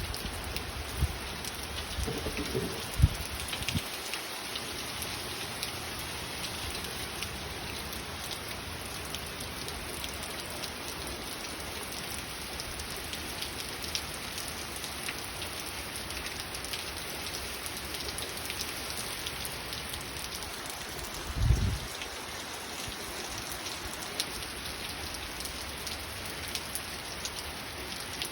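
Light steady rain from Hurricane Ian falling on surfaces, a constant hiss full of small drop ticks. Brief low thumps about a second and three seconds in, and a short low rumble about twenty-one seconds in.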